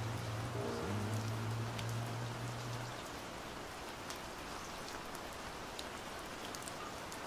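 Steady rain falling, an even hiss with scattered ticks of single drops. The last low held notes of a song fade out about three seconds in, leaving the rain alone.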